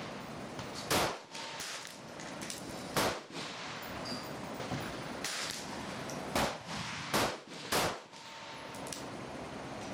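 Rifle shots on a shooting range: five sharp reports, one about a second in, one at three seconds, then three in quick succession between six and eight seconds.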